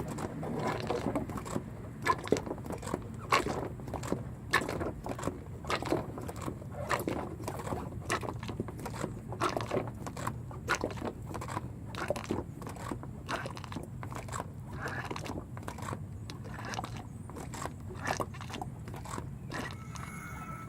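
Irregular clicking and scraping, a few sharp clicks a second, over a steady low hum. This is consistent with hand work on the truck's differential during a fluid change.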